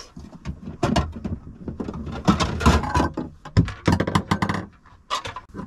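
Plates and dishes clattering and knocking against each other as they are taken out of an overhead caravan kitchen cupboard. A dense run of knocks that thins out near the end.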